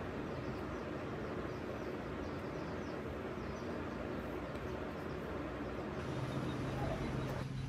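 Steady background noise with faint high chirps, like small birds, in the first half. A low steady hum comes in about six seconds in.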